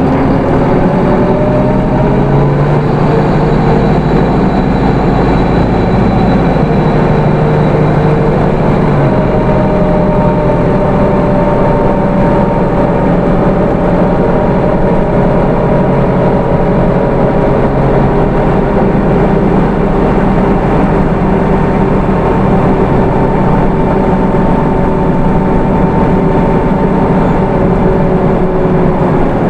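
Hino Rainbow II bus's Isuzu 4HK1 four-cylinder turbo-diesel engine and automatic transmission under way, a steady drone with road noise. The engine note shifts about two seconds and nine seconds in, then holds steady at cruising speed.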